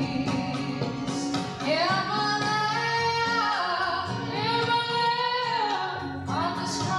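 Sikh kirtan: a woman's voice singing a devotional hymn over steady, sustained instrumental accompaniment. The sung line comes in about a second and a half in and holds long, wavering notes.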